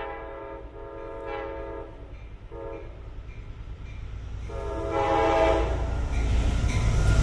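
Horn of a Metro-North P32AC-DM locomotive on an approaching train. A blast carried over from just before ends, then come a long blast, a short one and a final long one, completing the long-long-short-long warning signal. The rumble of the train grows louder as it nears.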